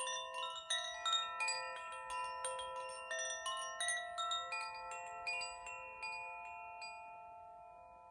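French-made wind chime, its tuned rods struck again and again by the clapper, about three or four strikes a second, building a cluster of overlapping ringing tones. The strikes thin out and stop about seven seconds in, and the chord fades away.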